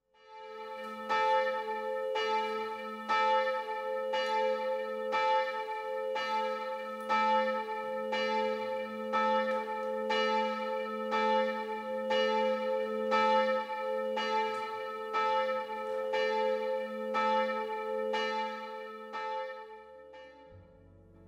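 A single church bell tolling, struck about once a second, its hum ringing on between strokes, then dying away near the end.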